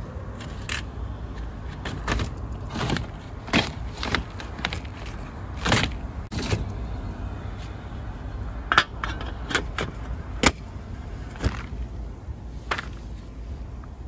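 Irregular sharp clicks, scrapes and rustles as a pleated air filter is handled in the metal filter slot of a furnace, over a steady low rumble.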